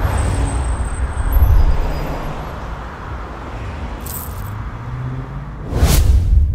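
Road traffic noise, a steady rumble of passing cars and motorbikes, with one vehicle passing close about six seconds in.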